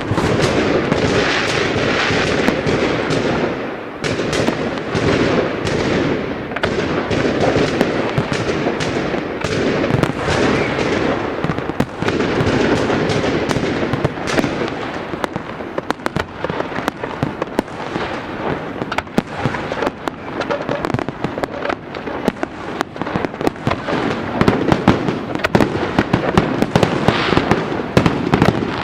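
A fireworks display: dense, overlapping bangs and rapid crackling with no let-up, many sharp reports a second over a continuous rumble, busiest near the end.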